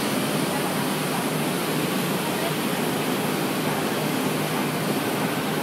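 Steady, even rushing noise of a foundry casting floor during pouring, with no distinct knocks or changes.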